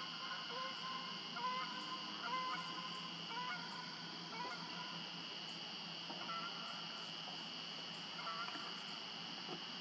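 Faint honking calls of geese, repeated several times in the first half and twice more later, over a steady high-pitched background chorus.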